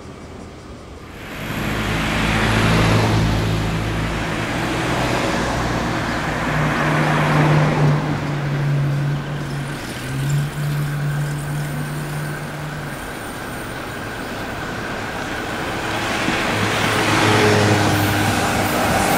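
Road traffic passing: several vehicles go by one after another, with a steady engine hum from a truck or bus among them.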